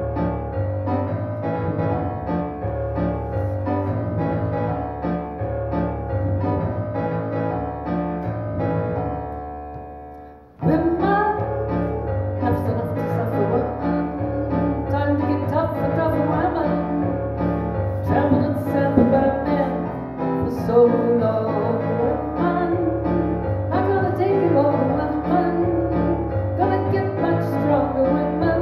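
Electronic keyboard played with a piano sound, slow sustained chords of a song intro; about ten seconds in the chords fade away and the playing starts again, and a few seconds later a woman's voice comes in singing over the keyboard.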